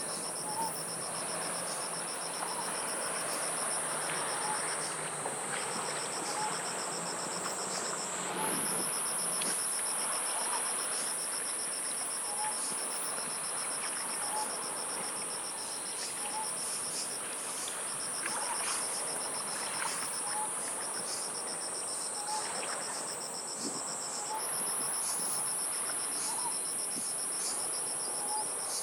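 A chorus of singing insects: one high, continuous buzz that slowly sinks in pitch and jumps back up twice, and a rapid pulsing cricket-like trill, over a steady wash of sea waves on the shore. A faint short note repeats about every two seconds.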